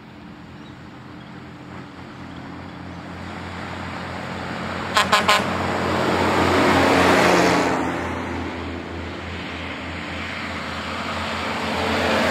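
Vintage trucks driving past one after another: the engine of the first swells as it approaches and passes about seven seconds in, then fades, and it gives three short horn blasts about five seconds in. A second truck's engine builds near the end.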